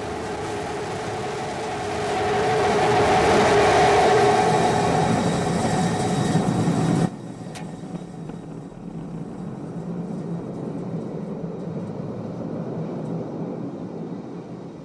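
Starship SN15's Raptor rocket engine on its landing burn: a rumbling roar that swells over the first few seconds and cuts off abruptly about seven seconds in. A quieter steady rushing noise follows and fades out near the end.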